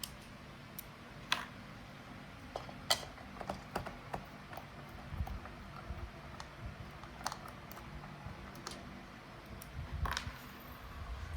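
Scattered light clicks and taps of plastic clock parts being handled, with a few soft knocks, as the safety cover and screws are taken off a wall clock's movement.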